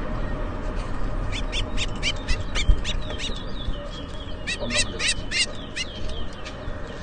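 Caged towa-towa songbirds singing in a song race: runs of quick, sharp chirping notes that start about a second in and come thickest past the middle. Steady low background noise runs underneath.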